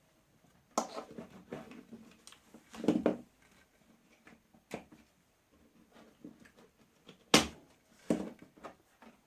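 Handling noises on a workbench as a soldering iron and its cord are plugged in and tools moved: a few scattered knocks and clicks, the sharpest about seven seconds in.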